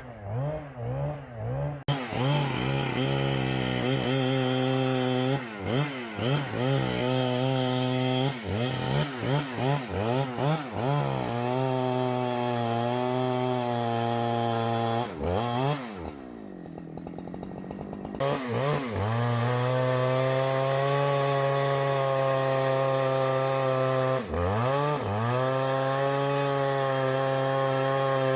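Husqvarna chainsaw revved in short bursts, then dropping to idle for a couple of seconds past the middle. It is then held at high revs, cutting into wood, with one brief dip near the end.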